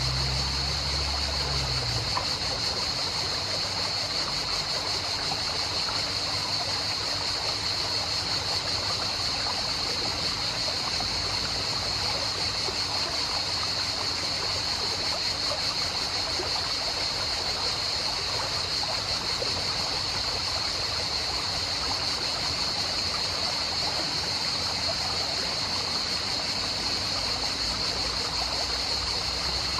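Steady rush of flowing stream water, with a steady high-pitched whine over it.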